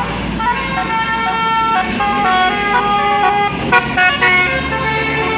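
Telolet Basuri multi-tone bus horn playing a melody of held notes that step up and down in pitch. A few sharp clicks come a little before four seconds in, and a bus engine's steady low hum joins about four seconds in.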